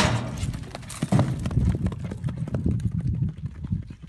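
A sharp bang, then a horse galloping on arena dirt after a calf, its hooves knocking over a low rumble; the hoofbeats fade toward the end.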